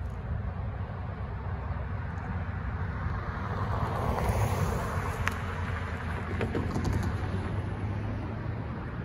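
Road traffic: cars passing on a multi-lane road, tyre and engine noise swelling to a peak about halfway through and again a little later, over a steady low rumble.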